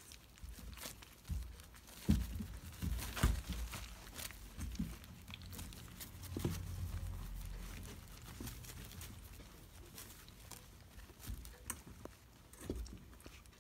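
Crinkling and rustling of a plastic-backed absorbent pad as a young animal tugs at and chews a dead day-old chick, with scattered sharp clicks and small crunches, busiest two to three and a half seconds in.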